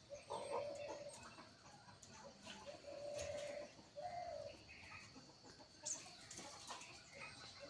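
A hen making low, drawn-out clucking calls, several in a row about a second apart, with a few brief high chirps of small birds.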